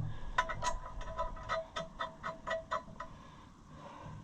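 Metal hand tools clicking about four times a second, each click with a short metallic ring. The clicking stops a little under three seconds in.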